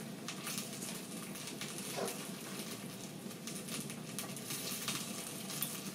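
Tomato stew frying gently in a covered steel pot: a faint, steady sizzle with light pops.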